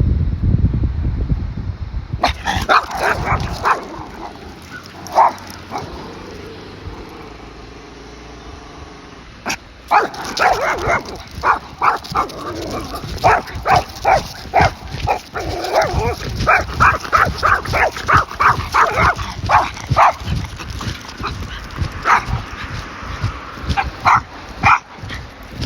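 A person's walking footsteps in a steady rhythm of about two steps a second, with a dog's breathing alongside. Wind buffets the microphone for the first two seconds.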